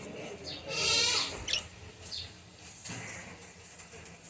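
Pet budgerigars and a lovebird chirping: several short high chirps, with one louder, longer warbling call about a second in.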